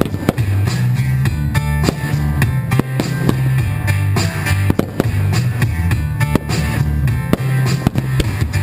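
Rock music with a drum kit and guitar, playing loudly with a steady beat.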